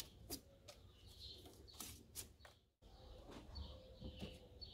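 Faint, scattered clicks and rustles of a thin electrical wire being handled and laid along the plastic scuttle panel, with faint bird chirps in the background.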